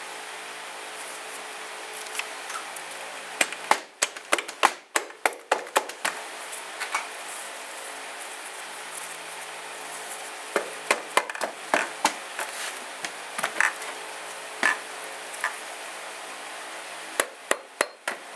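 Dead-blow mallet knocking on the tabs of a KTM RFS engine's aluminium crankcase to split the case halves: bursts of quick blows with pauses between, over a faint steady hum.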